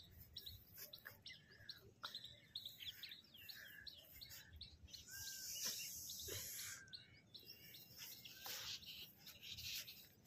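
Small birds chirping and twittering faintly, with many short, quick calls, and a brief hiss about five seconds in.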